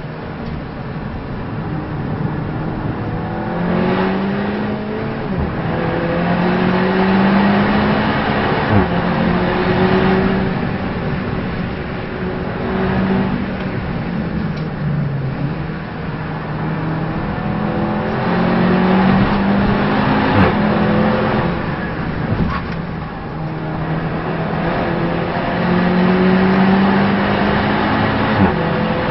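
Race car engine pulling hard through the gears, its pitch climbing again and again and dropping back at each gear change and under braking, over steady road and wind noise.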